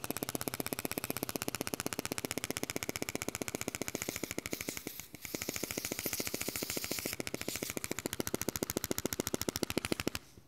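Pneumatic reciprocating saw from a fire engine's air-tool kit, run free off a small portable air compressor: a fast, even rattle of strokes. It cuts out briefly about five seconds in, runs again and stops just before the end.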